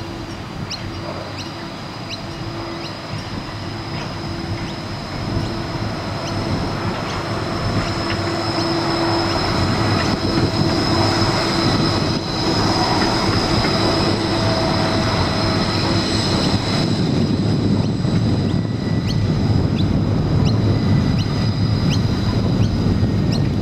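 A Bombardier Flexity 2 light-rail tram running past close by, its rumble growing louder over the first half and then holding. Steady high-pitched whines ride over it, typical of steel wheel squeal on the rails.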